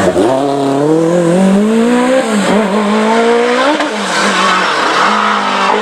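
Lancia Delta S4 rally car's twin-charged four-cylinder engine under hard throttle, its pitch climbing and then dropping briefly about four times before climbing again.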